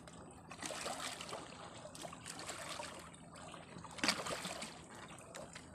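Water lapping and trickling against the hull of a small outrigger boat, with a few brief knocks, the plainest about four seconds in.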